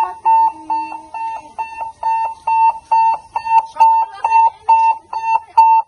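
Electronic alarm beeping loudly: one high tone repeating evenly about twice a second.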